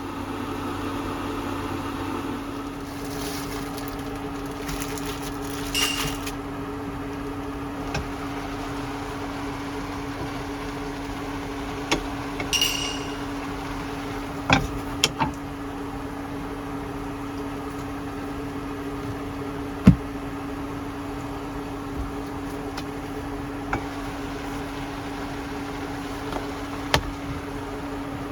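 Steady mechanical hum at one fixed pitch, with scattered small clicks and knocks; one sharper knock about twenty seconds in.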